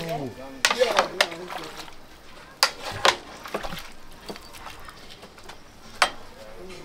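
Cooking pots and utensils clattering in an outdoor kitchen: about half a dozen separate sharp knocks, with a cluster near the start and single strikes later on.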